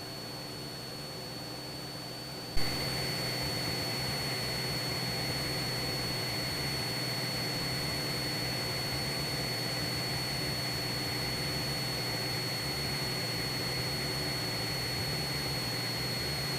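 Cessna 172 cabin noise through the headset intercom: a steady engine and propeller drone with a constant high-pitched whine. About two and a half seconds in there is a click, and after it the drone is louder.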